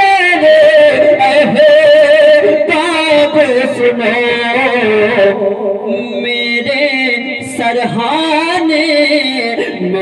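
A male voice singing a devotional Urdu manqabat, holding long, wavering melismatic notes with few breaks.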